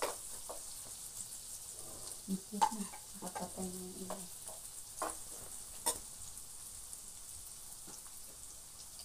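Food frying in oil in a wok on a portable gas stove: a steady high sizzle, with a spatula clinking and scraping against the pan a few times as it is stirred.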